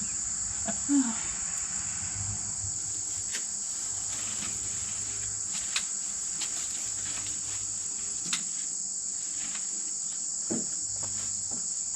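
Steady high-pitched insect chorus ringing throughout, with a faint low hum underneath and a few short sharp clicks.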